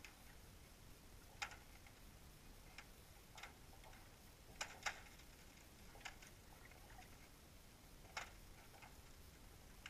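Near silence with a steady low rumble and faint, irregular clicks, roughly one a second, the two strongest close together about halfway through.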